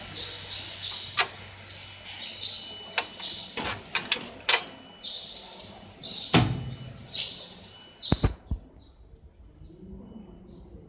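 Rustling and clicking handling noise with several sharp knocks, the heaviest about six seconds in. It dies down about eight seconds in, leaving only faint high chirps.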